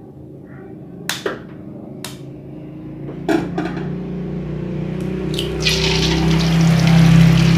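An egg is cracked against a wok and dropped into hot cooking oil, which starts sizzling loudly about three-quarters of the way in. Before that there are a few sharp knocks over a steady low hum.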